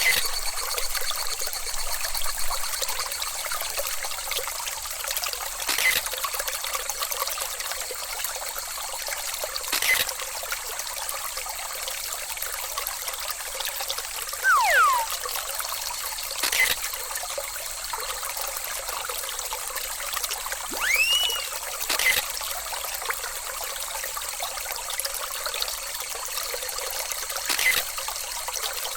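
Steady trickling water, broken by sharp clicks every few seconds and two short whistling glides, one falling about fourteen seconds in and one rising about twenty-one seconds in.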